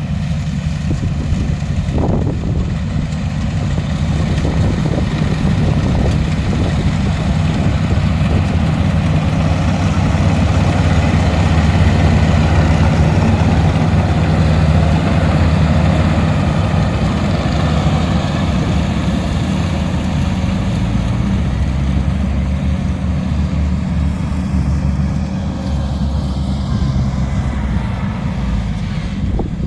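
Rice combine harvester engine running steadily with a deep, even hum, growing louder to its peak about halfway through and easing off toward the end.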